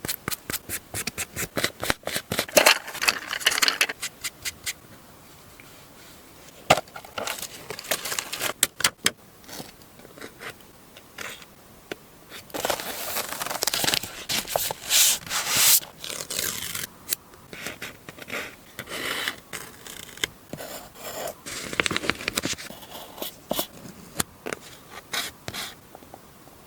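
Paper and stickers being handled close to the microphone: a quick run of clicks and taps for the first few seconds, then scattered taps and bursts of rustling and scraping.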